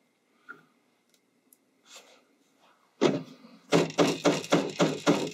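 Yellow mallet striking a metal snap-setting tool on a wooden block: a quick run of sharp hits, about four a second, starting about three seconds in, driving a snap's prongs into the post.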